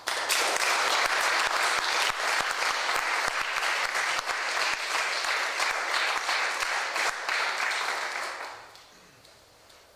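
Audience applauding: the clapping starts abruptly and dies away about eight and a half seconds in.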